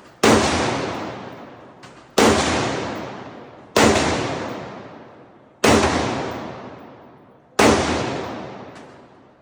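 Five single gunshots from a firearm, fired at a slow, steady pace about two seconds apart, each followed by a long echoing decay.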